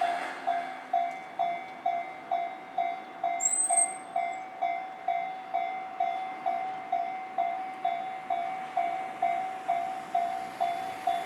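A Japanese railway level crossing's warning bell ringing steadily, about two strikes a second. A brief high squeal rises and holds about three and a half seconds in.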